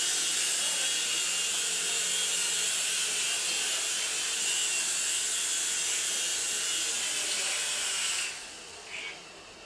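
Small radio-controlled coaxial-rotor toy helicopter flying, its electric motors and rotors whirring with a steady high whine that cuts off sharply about eight seconds in as it lands.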